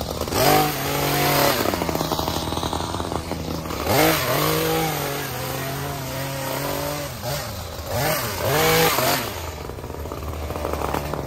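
Chainsaw engine revving up in three bursts, near the start, about four seconds in and about eight seconds in, dropping back toward idle between them, as when the saw is throttled up for cuts.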